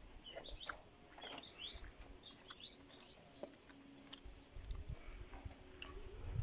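Small birds chirping: quick, high rising chirps in a loose series, thinning out after about three seconds, with a few faint clicks.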